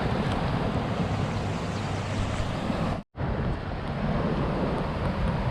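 Rushing creek water, a steady even noise that breaks off completely for an instant about three seconds in.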